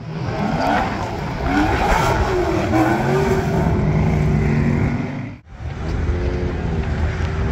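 Supercar engine accelerating hard, its pitch climbing and falling through gear changes, then holding a steadier note. The sound cuts out abruptly about five and a half seconds in, and a second engine note follows.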